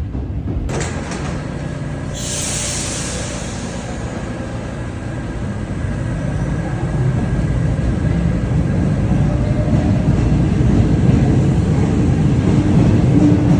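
Train running with a steady low rumble that grows louder from about halfway through, with a short hiss of air about two seconds in.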